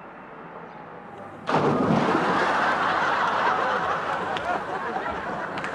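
A sudden loud splash of water about a second and a half in, then studio audience laughter that carries on, turning into applause near the end.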